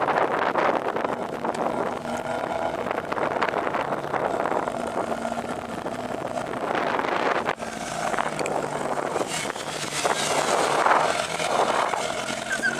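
Motor vehicle engine running, with wind rushing over the microphone. About halfway through, the sound breaks off suddenly and gives way to a steadier, lower engine hum.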